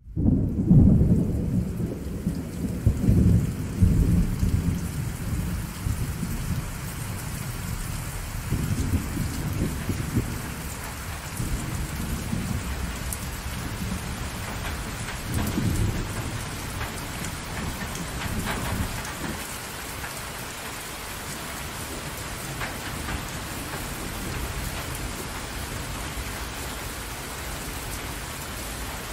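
Steady rain falling on open water, an even hiss of many drops. Low rolling rumbles of thunder come and go under it, heaviest in the first few seconds and dying away about twenty seconds in.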